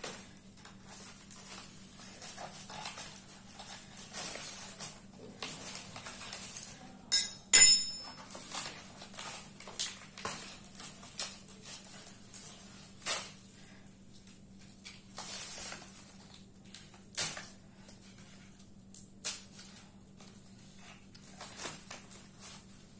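Hands breaking and peeling dried cow-dung plaster and cloth off a sealed pot: irregular crumbling, scraping and rustling. About seven seconds in, a metal tool is set down on the tiled floor with a short metallic clink and ring.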